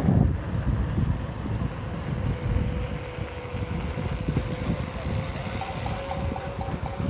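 Wind buffeting the microphone while riding an electric unicycle, with the wheel's hub motor giving a steady whine from about two and a half seconds in. A faint quick beeping comes in near the end.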